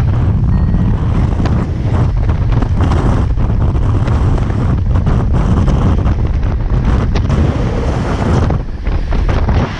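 Loud rushing airflow buffeting the camera microphone during steep banked turns under a paraglider wing, with a brief lull near the end.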